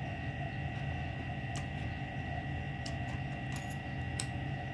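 Steady low electrical hum, with a few faint clicks of a metal spoon and fork against a ceramic bowl as pempek is cut in its sauce.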